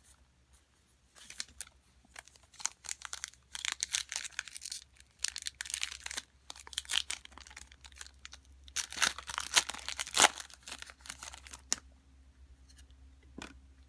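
A trading card pack's wrapper being torn open and crinkled, in a run of crackling rustles that is loudest about nine to ten seconds in.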